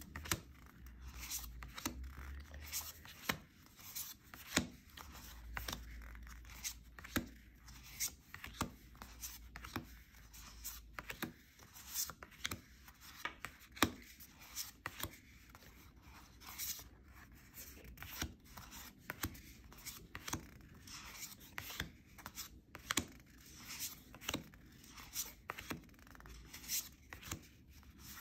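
Matte-finish tarot cards dealt one at a time onto a pile on a wooden table: a quick, irregular run of soft card-on-card slaps and slides, roughly one or two a second.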